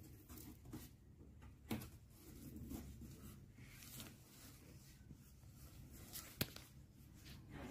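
Cardboard shipping-box flaps being opened and handled: faint rustling and scraping of cardboard, with two sharp clicks, one near two seconds in and one about six seconds in.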